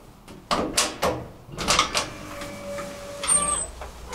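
Elevator car doors opening after the door button is pressed: several knocks and clunks from the door mechanism, a short steady hum, then more clunks with a brief high squeal near the end as the sliding doors part.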